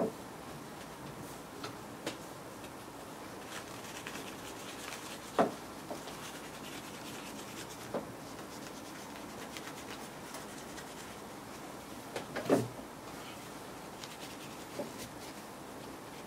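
Quiet handling of a bare graphics card board while its old thermal compound is wiped off: faint rubbing, with a few light knocks and clicks as the card and tools are moved on the table. The loudest knocks come about five and twelve seconds in.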